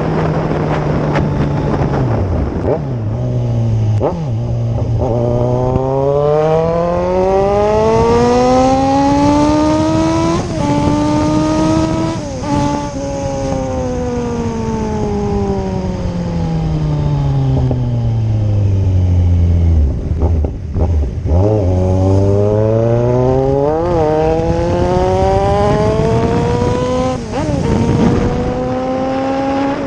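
Kawasaki Z1000's inline-four engine running at speed. Its pitch climbs steadily for several seconds as the bike accelerates, falls away as it slows, then climbs again near the end.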